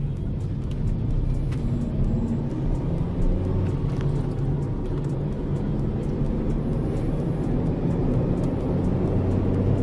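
Toyota car's engine and tyre noise heard from inside the cabin as it accelerates towards 80 km/h, steady and growing a little louder after the first second.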